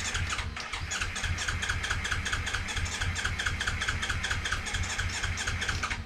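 Kawasaki Ninja 300's starter motor cranking its parallel-twin engine in a steady rhythm of about six beats a second, without the engine catching, then stopping near the end.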